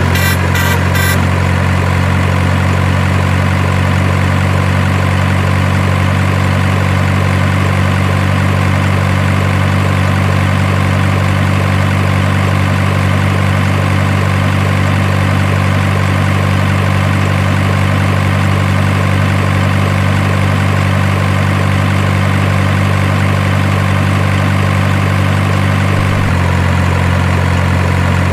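Heavy diesel truck engine idling: a loud, even low drone that holds steady, with a slight change in its tone about 26 seconds in.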